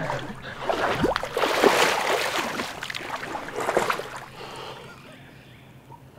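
Quick, heavy splashing of legs wading and running through knee-deep swamp water, dying down about four seconds in.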